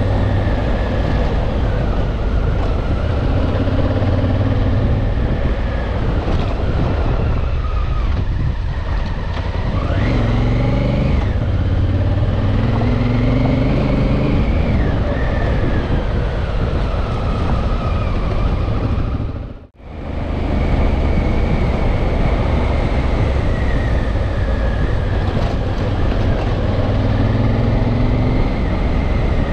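Honda Africa Twin's parallel-twin engine running under way on a dirt road, heard from the rider's seat, its pitch rising and falling with the throttle, with a dip and a climb in revs about a third of the way in, over steady wind and tyre noise. The sound cuts out for a moment about twenty seconds in.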